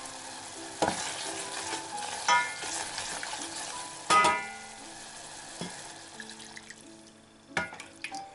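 Butter, onion and flour sizzling in a stainless saucepan while a wooden spoon stirs, with four sharp knocks of the spoon against the pan. The sizzle quiets down after about five seconds.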